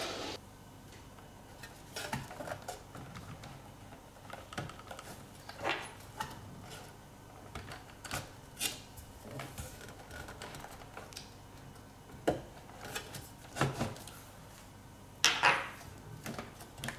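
Metal top frame of an Xbox One X being worked back into place on the console by hand: scattered light metallic taps, clicks and scrapes, with a louder clatter about two seconds before the end.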